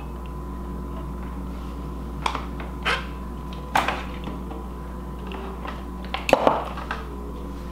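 A few short clinks and knocks as things are handled in a kitchen cabinet holding glass jars, the loudest about six seconds in, over a steady low hum.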